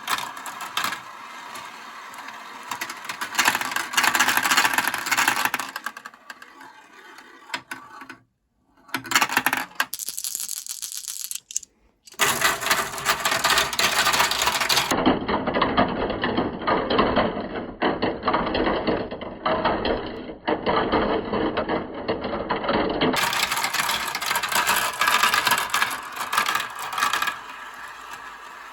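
Marbles rolling and clattering down a toy marble run track: a continuous rattle of many small clicks as they bump along the slopes, with a couple of brief breaks in the sound.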